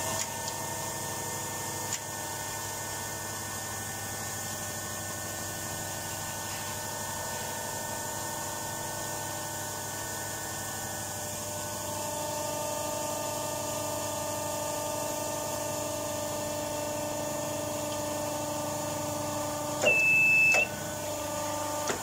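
Hydraulic hose crimping machine running steadily with a hum of several fixed tones as its dies close on a hose fitting; the tones change about halfway through. Near the end a short high beep sounds as the crimp completes.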